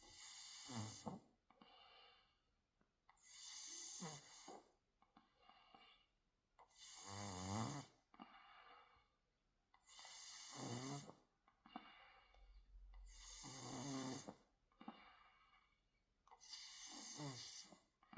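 A person snoring in deep sleep: six slow, regular snores about three seconds apart, each a breath of about a second with a low, wavering rattle.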